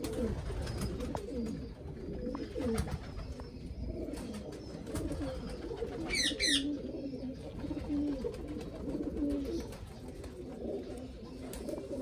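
Domestic pigeons cooing continuously in low, warbling calls, with a brief high chirp about six seconds in.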